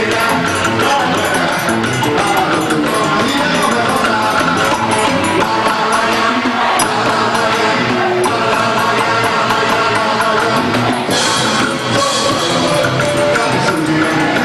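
Festa junina quadrilha music with percussion, playing loudly and steadily.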